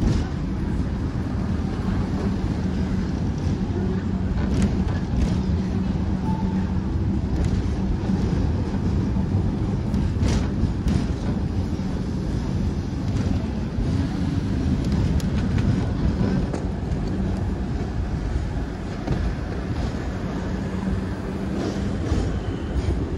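Hong Kong double-decker tram running along its street rails: a steady low rumble with a humming tone that fades in and out, and scattered sharp clicks from the wheels on the track.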